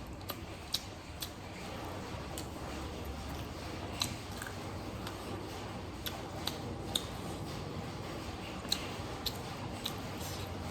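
Close-up eating sounds: a person chewing, with irregular sharp, wet mouth and lip clicks.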